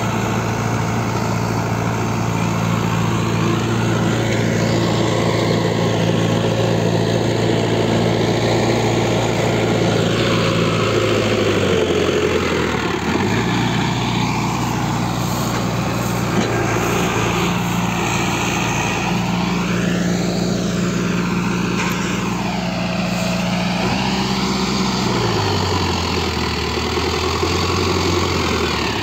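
Diesel engine of a Sonalika tractor running under load as it pulls a full grain trolley, a steady hum whose pitch shifts about twelve seconds in and again about twenty-five seconds in.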